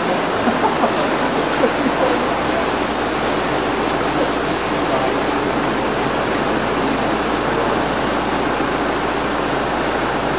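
Floodwater flowing through a flooded street: a steady, even rush of water.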